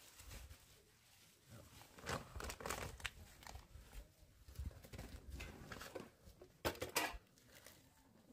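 Plastic bag crinkling and rustling as it is handled, in irregular bursts that are loudest about seven seconds in.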